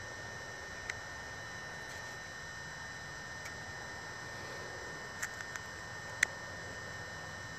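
Steady background hiss with a faint high hum, broken by a few short sharp clicks, the loudest just after six seconds.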